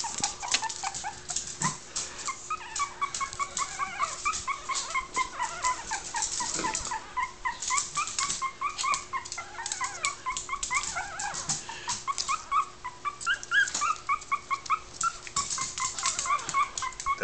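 Three-week-old puppies whining: a long run of short, high squeaks, several a second, starting about two seconds in, over scattered light clicks.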